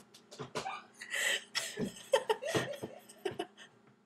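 Young women laughing in short, breathy, stop-start bursts.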